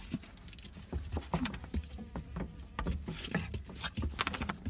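Puppy moving about on a straw-strewn floor: an irregular patter of small scratches, rustles and soft knocks, with a couple of brief low grunting sounds.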